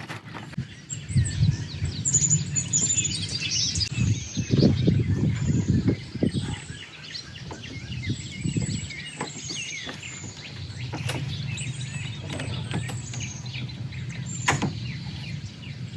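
Small birds chirping and twittering throughout over a low rumble, with occasional sharp knocks and clicks of handling, the clearest near the end.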